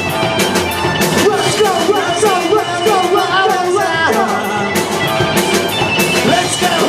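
Live rock band playing: drums with cymbal crashes under a bending, wavering lead melody and a full band behind it.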